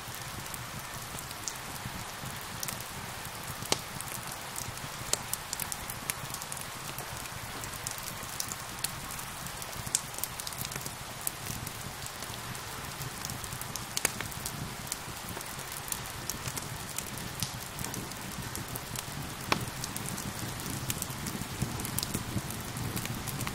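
Steady rain hissing, mixed with a crackling wood fire whose sharp pops and snaps come irregularly, several seconds apart, standing out as the loudest sounds.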